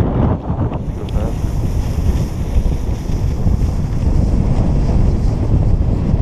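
Loud, steady wind noise: rushing air buffeting an action-camera microphone as it moves down a ski run.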